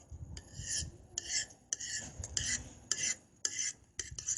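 A teaspoon stirring and scraping a thick shampoo-and-salt slime mixture in a plate, in repeated strokes of about one every half second or so, with small clinks of the spoon against the plate.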